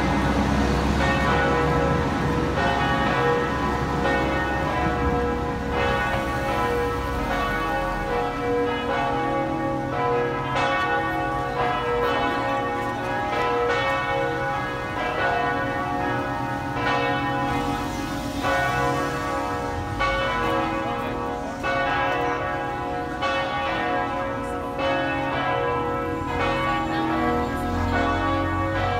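The four Cornille-Havard bells (cast 1922–1923, tuned B, C-sharp, D-sharp and a higher D-sharp) of the Notre-Dame de Québec basilica ringing together, their strokes overlapping in a continuous tumble of ringing tones. The uploader takes the ringing for the call to the 5 p.m. mass.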